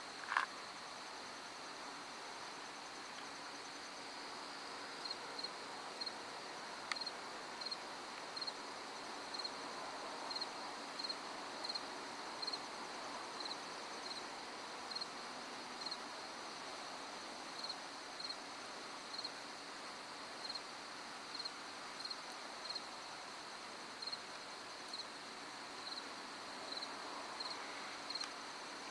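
Crickets chirping at night: a steady high trill, with a regular chirp repeating about one and a half times a second from about five seconds in. A brief sharp sound comes right at the start.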